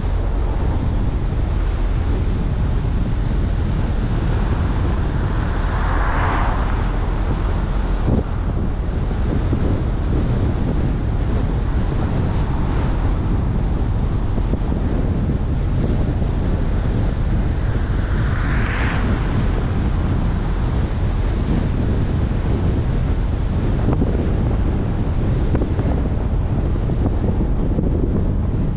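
Wind buffeting the microphone of a moving car, over a steady low road and tyre rumble, with two brief rising-and-falling whooshes about six seconds in and again at about nineteen seconds.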